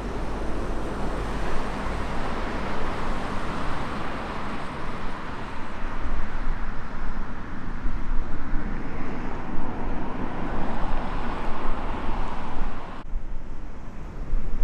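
Jet airliner's engine noise as it comes in to land, a loud rushing sound that swells and eases over several seconds above a steady low rumble. Near the end the sound changes abruptly and loses its upper range.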